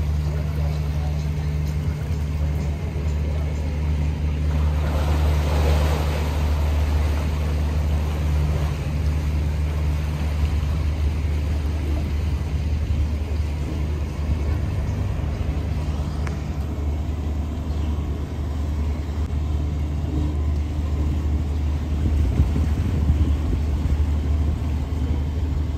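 Heesen 50 m aluminium motor yacht's diesel engines running at low revs with a steady low hum while manoeuvring stern-to into a berth. About five seconds in there is a brief rush of churning water.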